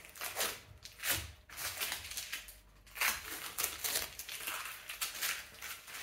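Masking tape being peeled off a uPVC door and its lock, and the used tape scrunched up, in several short noisy bursts.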